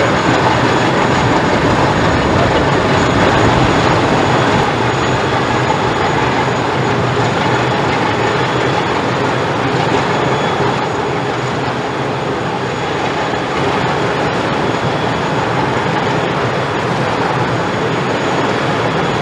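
Inland cargo ship's heavy diesel engine running under way, a loud steady rumble, easing slightly about halfway through.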